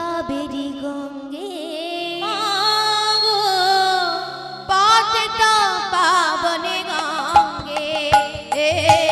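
Bengali devotional kirtan: a woman sings a melody with wavering, ornamented pitch over a steady drone. Drum strikes come in about halfway and the music gets louder.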